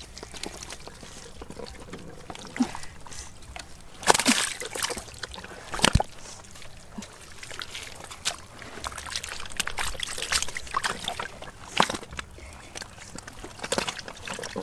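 Hands sloshing and groping in muddy water inside a small hole, with irregular wet splashes, the loudest about four and six seconds in.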